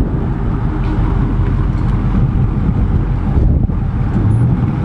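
Dodge Charger 392's 6.4-litre HEMI V8 idling on its stock exhaust as the car creeps forward at low speed, a steady low rumble.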